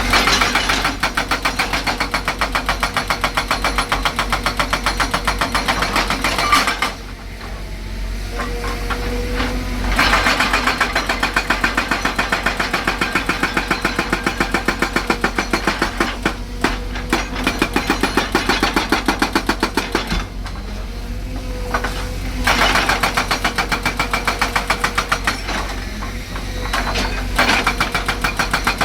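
Excavator-mounted hydraulic breaker hammering in a rapid, even train of blows, in three long runs that stop twice for a few seconds while the machine's engine keeps running.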